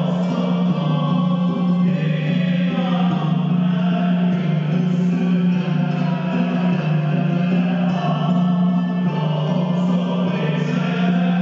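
Sufi sema music accompanying whirling dervishes: voices chanting together over a steady low drone that holds throughout.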